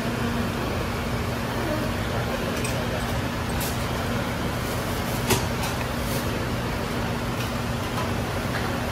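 Steady rushing noise and low hum of a food stall kitchen's ventilation and machinery, with a few light clinks of metal utensils and pots, the sharpest about five seconds in.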